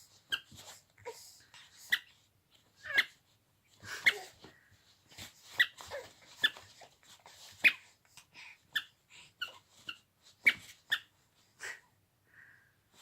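Sophie the Giraffe rubber squeaky toy squeaking over and over in short, irregular squeaks as a baby hits it.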